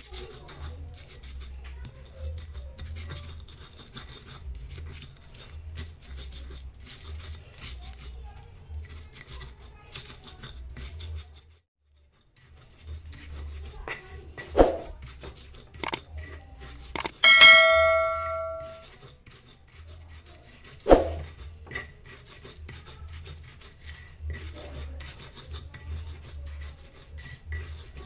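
Stone pestle grinding spices into a paste in a stone mortar (ulekan and cobek): steady, gritty rubbing and scraping strokes. There is a brief break near the middle, then a few sharp knocks and, a little past halfway, one loud clang that rings for over a second.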